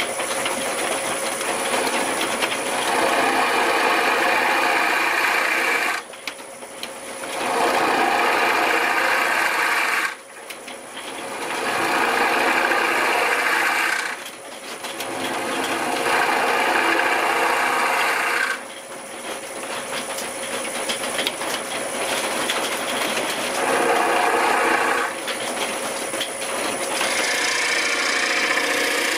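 Wood lathe running while a turning tool cuts into the inside of a spinning wooden bowl blank, hollowing it deeper. The cutting comes in several passes of a few seconds each, with short quieter breaks as the tool eases off. A thin steady high whine runs underneath.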